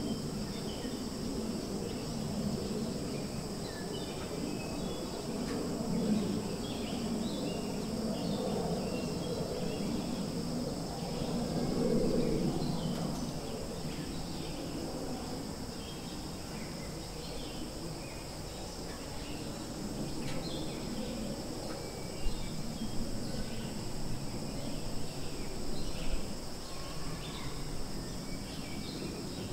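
Outdoor ambience dominated by a steady, high insect chorus of crickets or cicadas, with many short scattered chirps over it. Underneath runs a low, uneven background rumble that is strongest in the first half.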